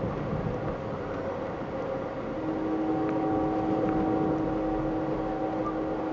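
Steady running noise of a moving passenger train, heard from inside the car. About two seconds in, a steady chord of several tones sets in over it and holds for about four seconds.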